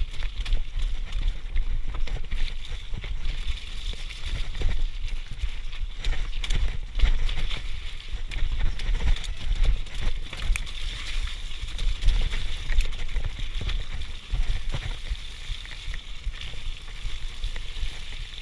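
Mountain bike descending a rocky trail with water running down it: tyres splashing and crunching over wet stones, with frequent knocks and rattles from the jolts over a heavy low rumble.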